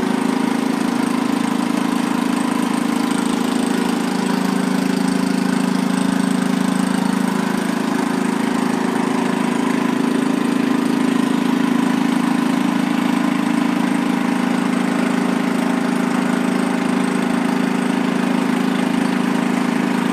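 A small engine running steadily at an even speed, a constant low drone.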